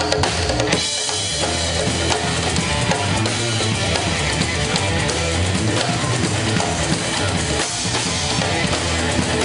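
Live band playing: drum kit, congas and djembes, electric guitar and electric bass together. About a second in, sharp hand-percussion strokes give way to the fuller band, with cymbals and a steady bass line.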